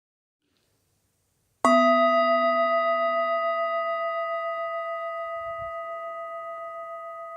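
A singing bowl struck once about a second and a half in, then ringing on with a slow, pulsing decay, its lowest tone fading first.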